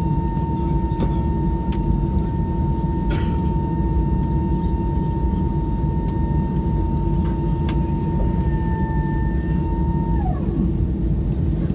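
Airbus A320-214 cabin noise while taxiing after landing: a steady rumble from the engines and air system, with a steady whine that slides down in pitch and fades about ten seconds in. A few sharp clicks break through.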